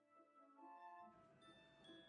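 Quiet background music: a light instrumental melody with bell-like mallet notes.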